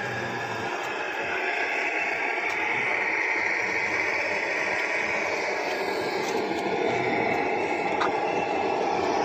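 Steady rushing noise of outdoor street ambience, even throughout, with no single clear source and no voices.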